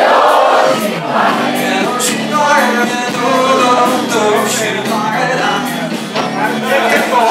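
A live band playing a song, with several singers over drums and electric guitar, recorded from among the audience.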